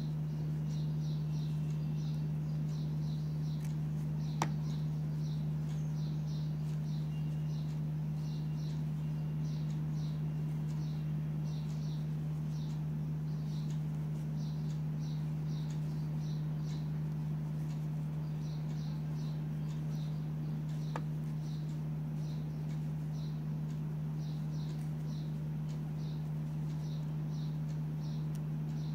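A steady low hum with quick high chirps repeating about two to three times a second in runs with short pauses, and a single click twice.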